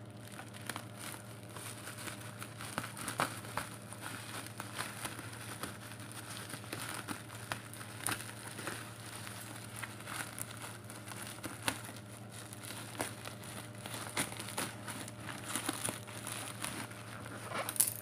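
A parcel's black plastic wrapping being torn open and handled by hand, with many irregular crinkles and crackles over a low steady hum.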